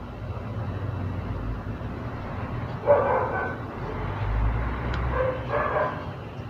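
A dog barking in short bouts, once about three seconds in and twice more near the end, over a low rumble.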